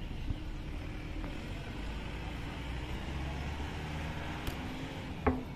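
Street traffic: a car's engine and tyres passing on the road, a steady low rumble. A sharp knock sounds near the end.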